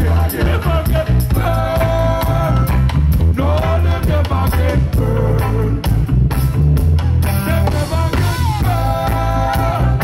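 Live reggae band playing through a stage PA, with a heavy bass line under guitar and hand drums, and a melodic line in long held phrases.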